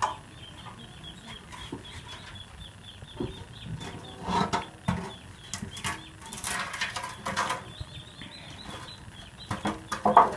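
Irregular knocks, scrapes and rustles as a metal motorcycle fuel tank wrapped in plastic is handled and a wire is worked into it. The loudest of them come in the middle and just before the end. Birds chirp rapidly and steadily in the background.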